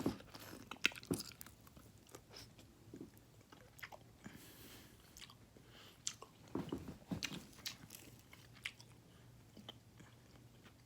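Close-up chewing of crunchy breaded fried chicken bites, with scattered crisp crackles of the coating as the bites are chewed.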